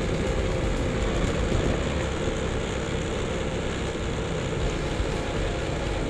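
Motorcycle engine running steadily while riding along a dirt track, with wind rumbling on the microphone.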